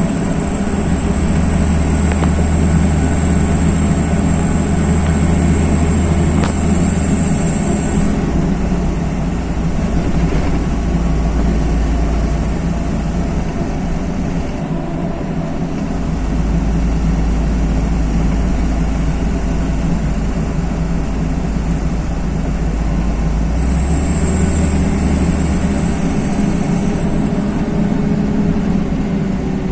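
LiAZ-5292.21 city bus driving, heard from inside the passenger cabin: a steady diesel engine drone and road noise, with the engine note shifting a few times. A thin high whine sounds at the start and again near the end.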